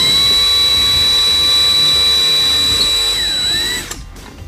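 Small electric drill running with a steady high whine while drilling a hole in a plastic battery cover. It starts suddenly and stops a little before the end, its pitch falling as it winds down.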